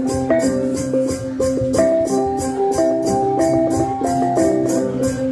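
Tây Nguyên cồng chiêng ensemble of hand-held bronze gongs playing: several gong tones overlap and alternate in an interlocking melody over a steady quick beat.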